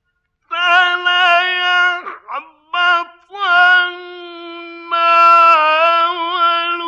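Male Quran reciter chanting in the melodic mujawwad style, his high voice drawing out long, ornamented notes. Several short phrases are followed by one long held, wavering note.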